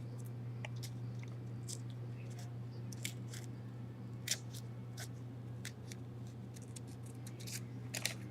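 Scissors cutting through a sheet of paper: irregular sharp snips, a few at a time, over a steady low hum.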